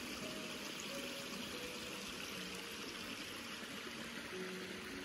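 Small forest stream running over rocks: a steady rush and trickle of water.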